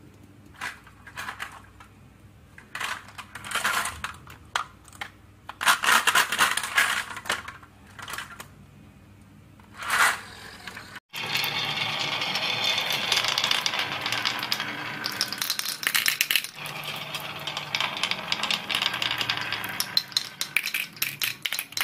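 Marbles clinking and rattling in the plastic trailer of a toy truck as it is pushed across a wooden floor, in scattered clicks and short bursts. About 11 seconds in, the sound cuts to many marbles rolling and clacking down wooden marble-run tracks in a dense, continuous rattle.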